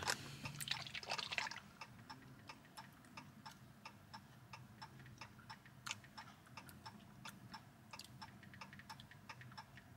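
Faint, even ticking, about three ticks a second, like a mechanical tick.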